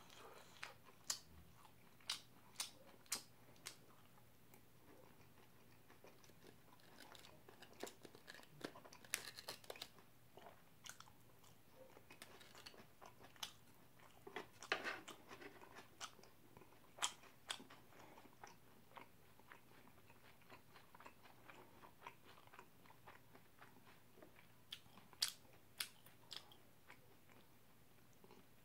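Close-up, quiet chewing and biting of battered sweet-and-sour fried pork, with scattered sharp crunchy clicks at irregular intervals.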